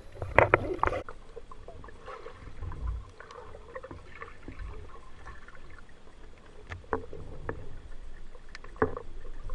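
Muffled underwater noise picked up by a submerged camera in its waterproof housing: a low rumble with scattered clicks and knocks, and a louder flurry of knocks about half a second in.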